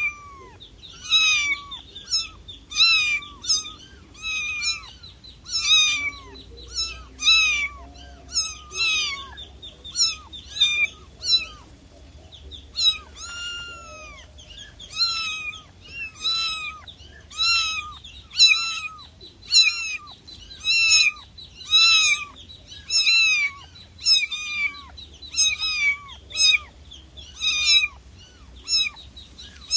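Cat meowing over and over: short, high-pitched meows that fall in pitch, about one or two a second.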